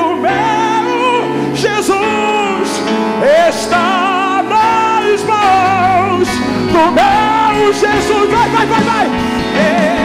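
Live gospel worship band playing, with keyboard and electric guitar under a man singing long held notes with vibrato.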